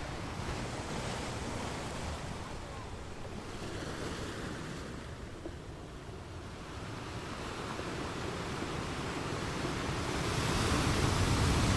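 Fast-flowing stream with a strong current, its water rushing steadily; the rush swells louder about ten seconds in.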